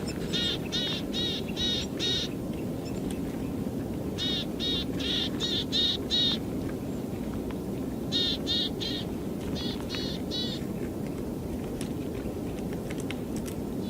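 Eurasian nuthatch calling: quick series of about four clear whistled notes a second, in three runs, with a few faint clicks near the end over a steady low rumble.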